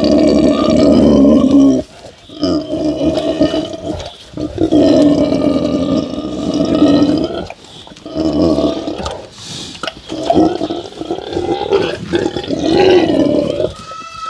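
Pot-bellied pigs grunting loudly in long, drawn-out bouts, about six of them separated by short pauses.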